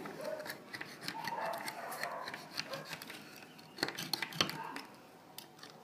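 Hand-held can opener cutting around the lid of a tin of sweetcorn: a run of irregular clicks as the blade works through the metal.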